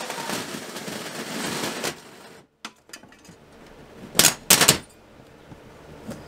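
Drill-driven 3.5-inch hole saw cutting through the wall's exterior siding: a dense rattling chatter that stops about two seconds in, as the saw breaks through. Then a few light clicks and two loud sharp knocks about four seconds in.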